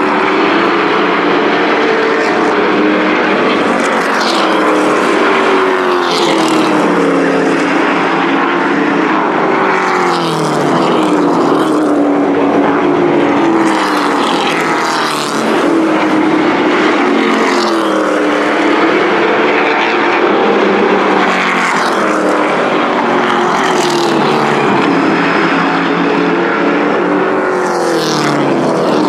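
Thunder Truck pickup-bodied race trucks racing on a paved short oval: several engines running hard together, their pitch rising and falling again and again as the trucks pass and lift for the turns.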